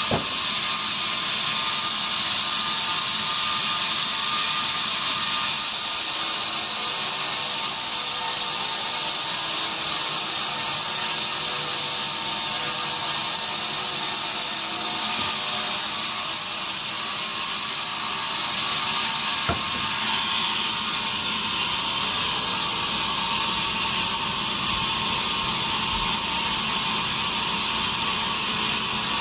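Sawmill bandsaw machinery running steadily: a continuous high hiss with a few steady tones beneath it. There is one sharp click about two-thirds of the way through.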